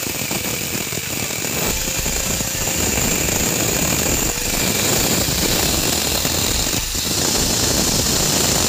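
Angle grinder's thin cutting disc sawing cross-hatch grooves into a steel vise jaw plate: a continuous, high, gritty grinding of abrasive on steel that dips briefly a few times as the disc moves between cuts.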